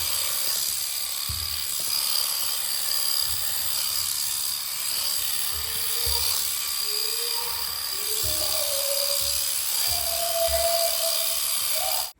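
Electric sheep-dagging shears running with a steady high whine and buzz as dirty wool is clipped from a lamb.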